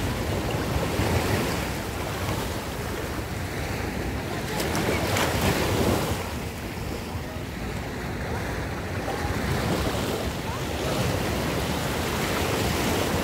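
Small sea waves washing and breaking in a continuous wash that swells every few seconds, loudest about five to six seconds in, with wind rumbling on the microphone.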